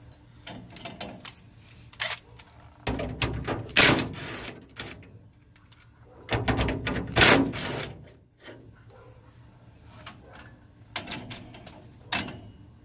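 Grille parts being worked loose by hand: scattered clicks and knocks, with two longer bouts of scraping and rattling, the first about three seconds in and the second about six seconds in.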